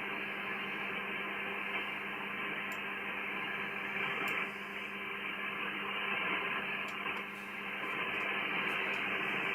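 Steady static hiss from a shortwave SDR receiver tuned to the 80-metre amateur band, with a low steady hum underneath and no voice on the frequency.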